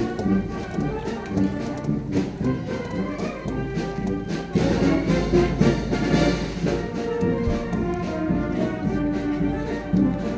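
Brass band playing, with held brass chords and a regular beat; it grows a little louder about four and a half seconds in.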